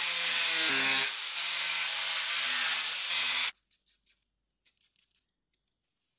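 Angle grinder with an abrasive cut-off disc running and cutting under load, a dense grinding hiss over a motor whine that shifts in pitch. It stops abruptly about three and a half seconds in, leaving a few faint clicks.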